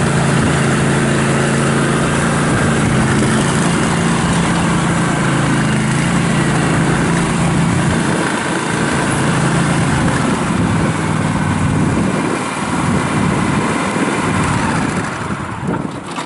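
Kubota G2000 garden tractor's 20 hp V-twin gas engine running steadily as it drives across gravel, easing off in the last few seconds and falling away at the very end.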